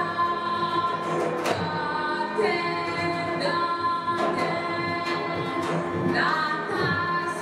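A woman singing live into a microphone, holding long notes and sliding between pitches, with a sharp rise in pitch near the end, part of a Serbian ethno/world-music performance.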